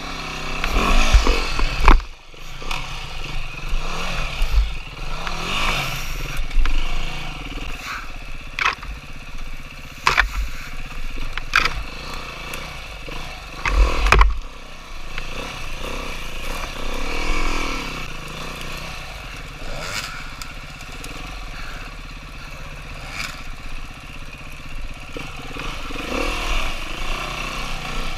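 Dirt bike engine revving up and down while riding a trail, its pitch rising and falling with the throttle. Several heavy thumps and some clatter come through, the loudest about two seconds in and again near the middle.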